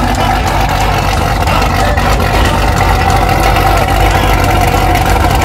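Sixth-generation Chevrolet Camaro's engine idling steadily, heard close at its quad exhaust tips.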